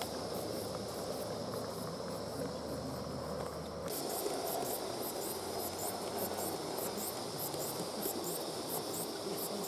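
Gauge 1 model steam locomotive running with a train, its exhaust chuffing as a steady string of soft hissy beats, about three a second, over the rumble of wheels on the track.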